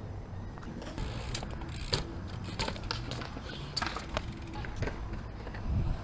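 Bike tyres rolling over concrete skatepark ramps: a low rolling rumble with scattered clicks and knocks from the bike.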